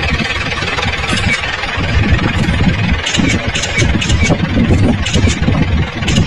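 Vehicle engine idling with a steady low rumble, joined by a scatter of short sharp ticks from about halfway through.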